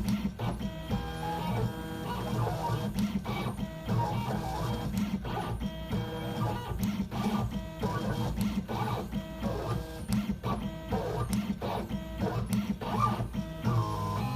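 CNC engraving machine running, its stepper motors whining at tones that jump from pitch to pitch as the tool moves over a metal printing plate, with frequent short ticks.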